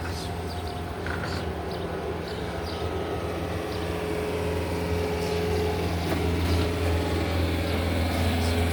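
Engine of a big lawnmower running steadily, slowly getting louder as it comes closer.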